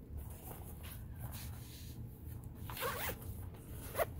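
Zipper on a black nylon pouch being pulled open, heard as a couple of short rasps, the sharpest near the end.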